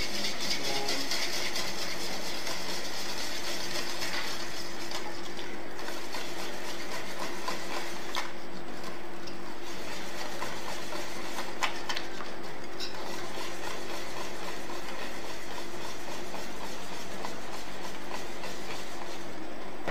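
Wire balloon whisk beating flour into cake batter in a large stainless steel bowl: a steady run of quick scraping and clinking strokes against the metal.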